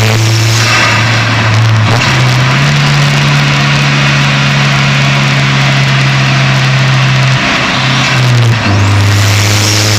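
Turbocharged 4G15 four-cylinder engine of a Proton Saga FLX running at a steady speed. Its pitch steps up about two seconds in, holds, and drops back to the lower note a little before the end.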